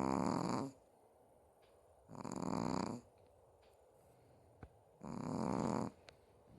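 Chihuahua snoring in its sleep: three snores, each about a second long, about two and a half seconds apart.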